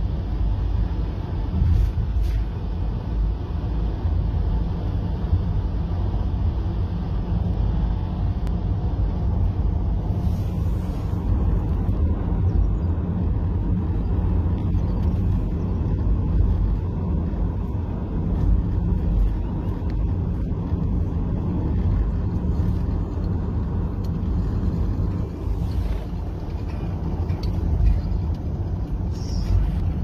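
Car driving along a road: a steady low rumble of tyre and engine noise, heard from inside the car.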